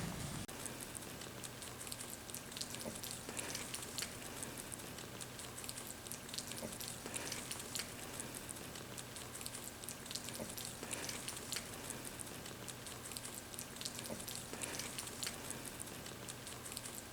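Baby rabbits nibbling and chewing fresh leafy plants: a steady run of small crisp clicks and crackles of munching and leaves rustling, over a faint steady hum.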